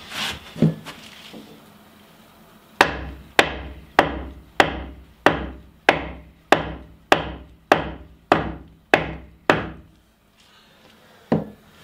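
Hammer blows on the foot of a timber post, driving it sideways into a tight fit against the shipping container's frame. About a dozen evenly paced strikes, a little under two a second, each with a short ring, begin about three seconds in. A few lighter knocks come before and after them.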